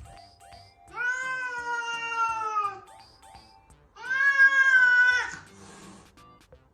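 A cat meowing twice, two long drawn-out meows, the second louder and shorter, each dropping in pitch as it ends.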